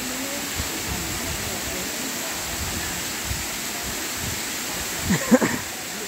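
Small waterfall and rocky stream rushing steadily. A person's voice calls out briefly about five seconds in.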